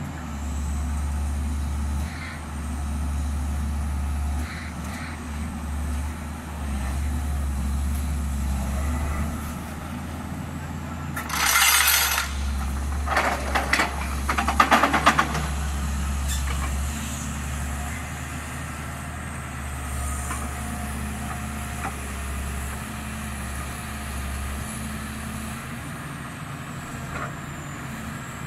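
Excavator-mounted vibratory pile hammer and its diesel engine running with a steady low drone. A little before halfway there is a short, loud hiss, then a quick rattle of metallic clanks a second or so later.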